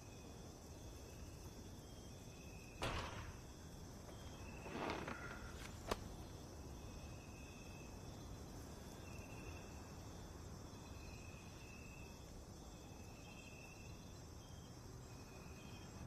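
Faint night ambience: insects chirping in short pulses over a low steady background hiss. A couple of soft knocks or rustles come about three and five seconds in, and a sharp click just before six seconds.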